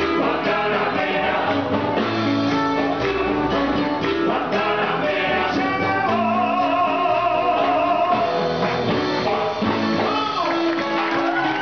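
Live Cuban band playing, with singing and guitar over a steady accompaniment; a long wavering note is held in the middle.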